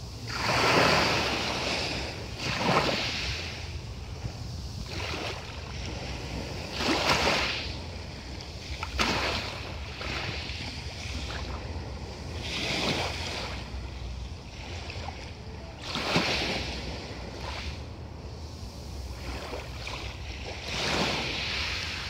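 Small sea waves breaking and washing over a pebble beach, a rush of water swelling and fading every few seconds, over a steady low rumble.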